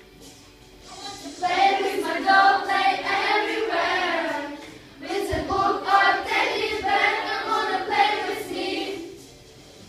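A group singing a children's action song in English, in two phrases with a short break about halfway; the singing stops near the end.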